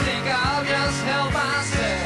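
Live rock band playing: a singing voice over acoustic instruments, with drums keeping a steady beat of about three strokes a second.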